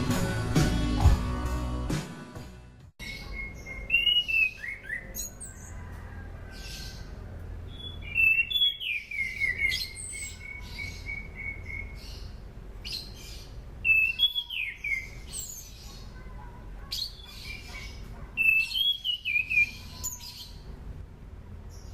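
An anis cendana, an Indonesian ground thrush, singing in several separate phrases of rapid sliding whistles, trills and high chips, one phrase holding a run of quick repeated notes. This is the bird's natural song, used as a lure recording to draw other thrushes into song. Intro music ends about two seconds in.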